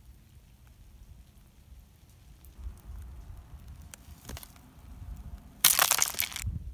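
Ice glaze from freezing rain on grass blades cracking and crunching under a pressing stick: one loud crackling burst, under a second long, near the end. Before it, a few faint ticks over a low rumble.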